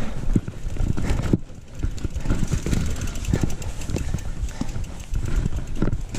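Mountain bike rattling and thudding over a rough, rocky trail: irregular knocks and clatter from the bike as it jolts, over a constant low rumble of wind on the body-mounted camera's microphone.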